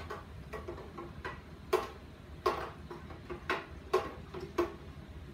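A spoon stirring liquid in a clear plastic pitcher, knocking against its side in a run of sharp, irregular clicks, about two a second.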